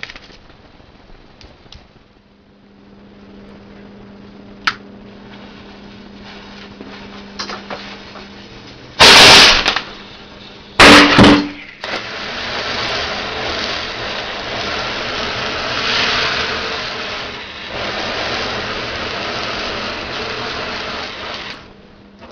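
Two very loud blasts about a second and a half apart, then a steady, hissing roar of a pyrotechnic charge burning and spraying fire for about ten seconds, which dies away near the end.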